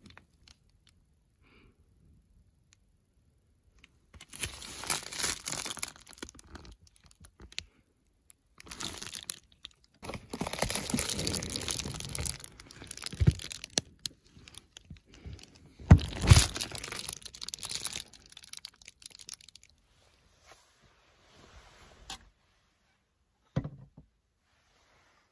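Bedding and plastic bags rustling and crinkling as they are handled in a car's cramped interior. The rustling comes in irregular bursts starting about four seconds in, with a short thump near the end.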